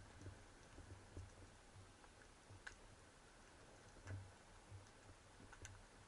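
Near silence: faint underwater ambience with a few scattered faint clicks, about three in all.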